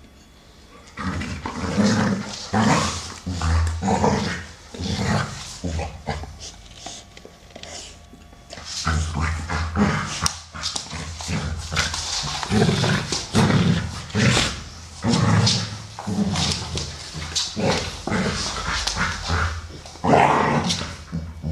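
Two American Staffordshire Terriers play-fighting, growling in short irregular bursts that start about a second in, with a brief lull around seven seconds before it picks up again.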